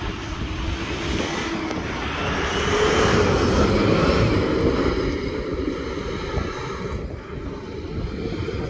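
Off-road 4x4's engine pulling hard as it drives past close by on a sandy track: it grows louder to a peak about three to four seconds in, then fades as the vehicle heads away.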